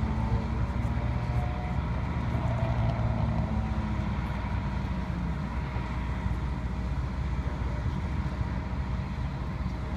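Steady low rumble of vehicle engines and road traffic, with a pitched engine drone that fades out about halfway through.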